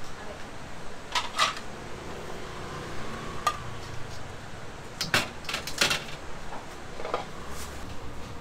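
A metal perforated ladle clinking and clattering against a steel pot and a china plate while boiled dumplings are scooped out and plated. The knocks come singly and in pairs, with a quick cluster about five to six seconds in.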